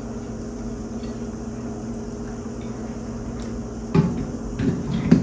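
A steady hum, then three short knocks about a second apart near the end, the last the loudest: household clatter like dishes or a cupboard door.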